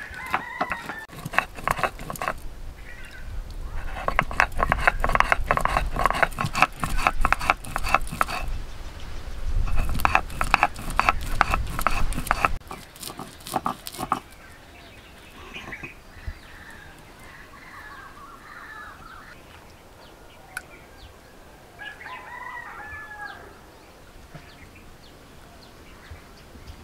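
Stone muller rubbed back and forth on a flat grinding stone (shil-nora), making rapid scraping strokes as poppy seeds, melon seeds and cashews are ground to a paste. The grinding stops about fourteen seconds in, with a short pause before that, and chickens call a few times in the quieter stretch afterwards.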